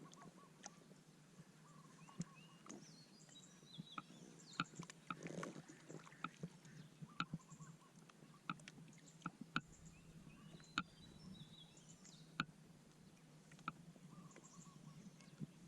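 Faint background ambience with a low steady hum, scattered light clicks and taps, and brief high chirps.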